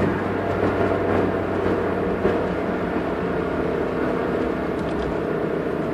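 Peugeot 306 1.4i four-cylinder petrol engine running steadily at a low, even speed, with one brief knock about two seconds in.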